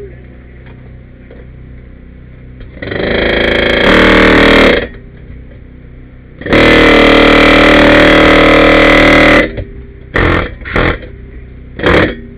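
Cordless reciprocating saw cutting through the steel leg of a school bus seat frame: two runs of about two and three seconds, then several short bursts near the end.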